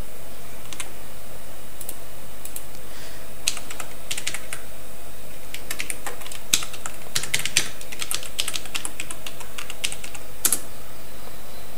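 Computer keyboard typing: short key clicks in irregular bursts, over a steady background hum and hiss.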